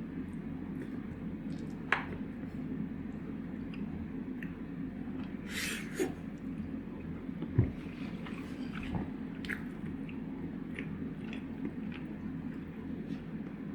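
Quiet eating sounds at a table over a steady low room hum: small clicks and knocks of chopsticks and tableware, with a brief rustle about six seconds in and a couple of soft thumps.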